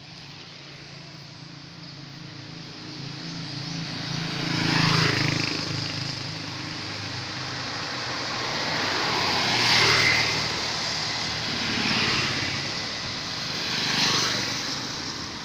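Road traffic: vehicles passing one after another over a steady background drone, about four pass-bys, each swelling and fading, the loudest about five and ten seconds in.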